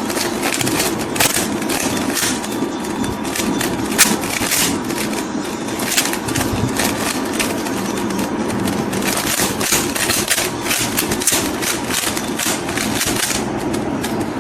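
A 3x3 Rubik's Cube being turned rapidly by hand: its plastic layers click and rattle in a quick, irregular stream of turns.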